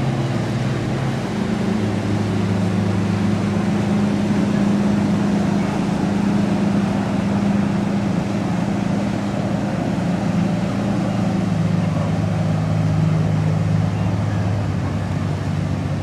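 A large boat's engines passing through the inlet: a steady low drone whose pitch steps down slightly about a second in and again later on, over a constant broad hiss.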